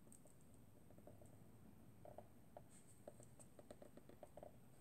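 Faint scratching and small irregular ticks of a We R Memory Keepers Foil Quill pen tip being drawn over tracing paper laid on foil sheet.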